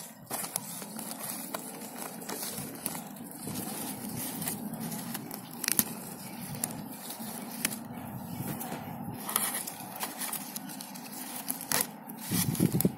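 Rustling and crackling of leaves and grass as a hand brushes through the plants in a fabric polybag planter close to the microphone, with a few sharp clicks.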